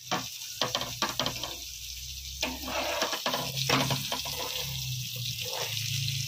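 Small turmeric-and-masala marinated fish shallow-frying in oil on a flat pan: a steady sizzle with scattered crackles and pops.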